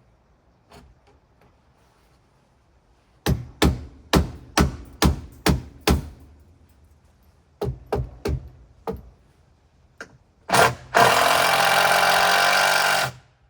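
A run of sharp knocks, seven in quick succession and then a few more, as the wooden roof beam is set in place, then a power drill running for about two seconds, driving a screw into the beam, and stopping abruptly.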